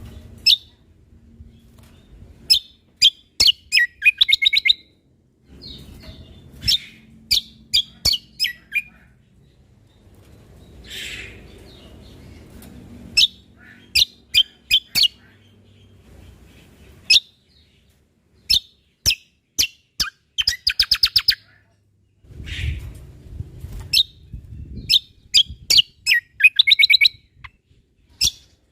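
Cucak kombo (kecial kombok) singing: quick runs of sharp, high notes that sweep downward, broken by short pauses, with a rapid trill about four seconds in, again about twenty-one seconds in, and near the end.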